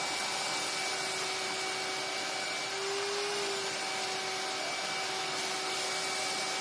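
Vacuum cleaner running steadily: a constant motor whine over a rushing air hiss, with a brief lift in pitch about three seconds in.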